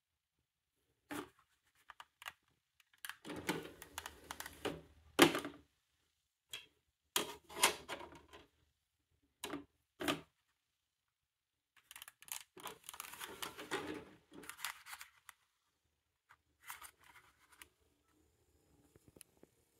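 Handling sounds around a Toshiba DVD/VHS combo player and its remote: sharp plastic clicks and clattering in several bursts, the loudest single click about five seconds in.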